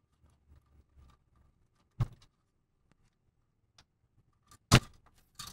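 Sharp plastic clicks and taps as small cable connectors are unplugged from a PC case's front-panel buttons and lighting controller: three clear clicks, the loudest near the end, with fainter ticks between.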